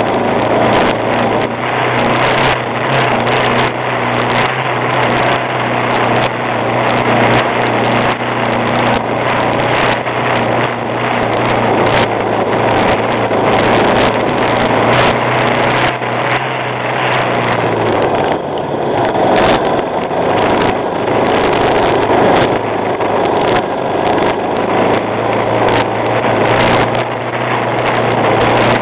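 ATV engine running steadily, with its low engine note dropping slightly about 18 seconds in.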